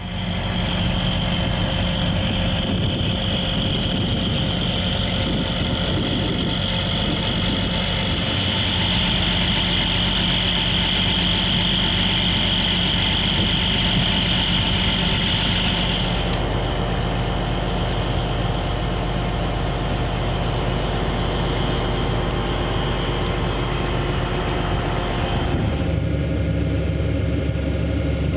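Tractor engine running steadily under load while pulling a tile plow through the soil, with a high steady whine over it for the first half. Near the end the engine sound becomes heavier and deeper.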